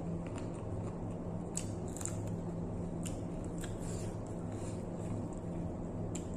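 Eating by hand: scattered wet clicks and smacks of chewing and of fingers picking through food on a plate, over a steady low hum.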